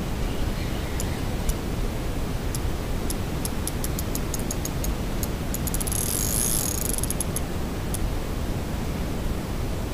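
Fishing reel clicking while a hooked fish is played on a bent rod: scattered sharp ticks that speed up into a fast, dense run of clicks about six seconds in, over a steady background hiss.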